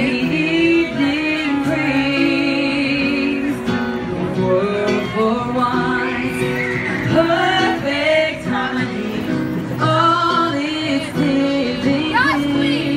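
Live singing: a woman singing into a handheld microphone over instrumental accompaniment, with wavering held notes.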